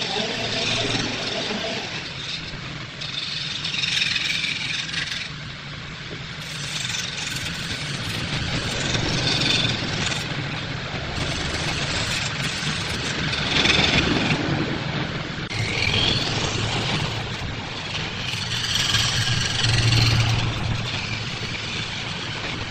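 Wood lathe motor running with a steady hum while a long-handled gouge cuts the spinning wooden vase. The cuts come and go in repeated passes, each a rush of scraping shaving noise over the hum.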